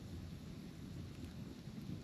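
Campfire burning: a steady low rumble with a few faint, sharp crackles of firewood over it.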